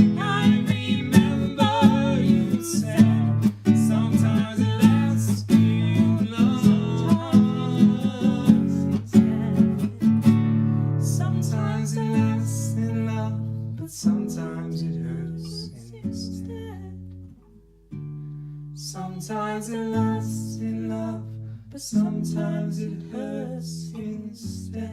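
Acoustic guitar playing the song's closing chords, picked note by note. A voice holds wavering, wordless notes over the first several seconds. The playing then thins out to slower, sparser notes, breaks off briefly about two-thirds of the way through, and fades toward the end.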